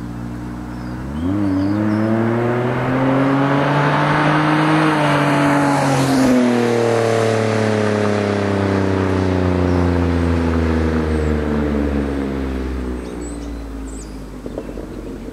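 A 2007 Pontiac G6 GT's 3.5 L V6 through a Classic Performance GT-R aftermarket exhaust, idling and then accelerating hard about a second in, revving higher for several seconds. Around six seconds the pitch drops suddenly at a gear change, then the engine pulls on and fades as the car drives away near the end.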